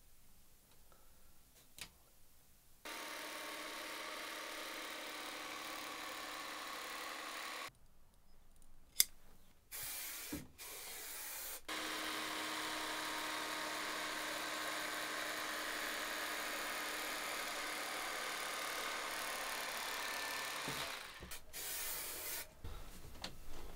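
Electric carving knife running steadily as it slices through upholstery foam, in two stretches: one starting about three seconds in, a longer one from about halfway. Near the end comes a short hiss from an aerosol can of spray adhesive.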